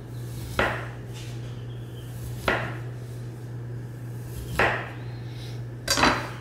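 Santoku knife slicing crosswise through a star fruit and knocking down on a bamboo cutting board: four sharp cuts about two seconds apart, each with a short wet crunch as the blade passes through the fruit.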